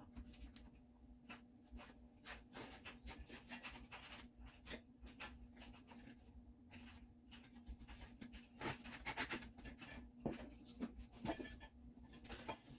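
Faint rustling and light clicks of metal rods being pushed into the sleeves of a fabric storage basket, busiest about two-thirds of the way through, over a steady low hum.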